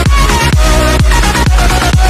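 Electronic dance music with a steady kick drum about twice a second under a synth melody.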